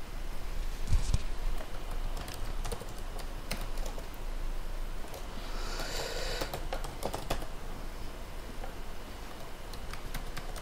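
Laptop keyboard keys on an Asus Eee PC netbook tapped over and over, irregular plastic key clicks, as keys are pressed to get into and move around the BIOS setup screen. A brief rustle comes about six seconds in.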